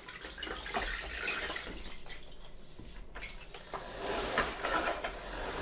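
O-Cedar EasyWring spin mop being wrung in its bucket's foot-pedal spin wringer, with water swishing and spraying off the spinning microfiber mop head. It grows louder near the end.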